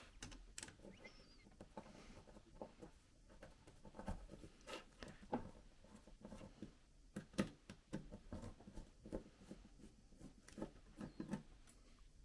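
Faint, irregular clicks and ticks of a small screwdriver working out the laptop's hinge screws, with the light handling of the metal hinges and screws.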